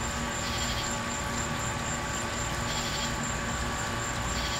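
Small electric brewing pump running steadily with a hum, pushing wort through a counterflow chiller into a glass carboy as it fills.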